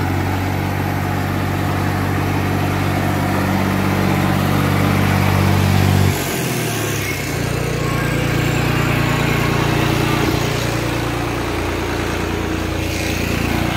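New Holland 5620 tractor's diesel engine running steadily. About six seconds in its note drops and settles into a lower, steady run.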